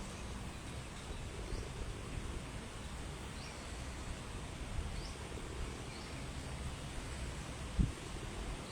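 Wind buffeting the microphone in a gusty, low rumble, with a few faint short high chirps and one brief thump near the end.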